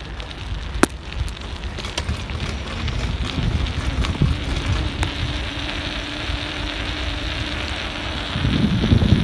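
Wind buffeting a handlebar-mounted camera on a moving bicycle, with tyre rumble on rough asphalt and a few sharp rattling clicks from the bike. The noise builds over the first few seconds, and a heavier rumble comes near the end.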